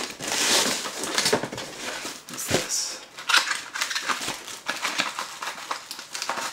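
Plastic packaging rustling and crinkling as the bagged cooler parts are handled, then cardboard packaging being handled, with scattered light taps and knocks.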